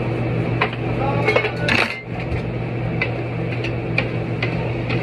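Dishes, pots and utensils clinking and knocking, a string of separate sharp clinks with a busier cluster between about one and two seconds in, over a steady low hum.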